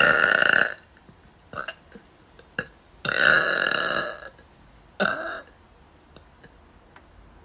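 A person burping loudly: a burp right at the start, a longer one about three seconds later, then a shorter one.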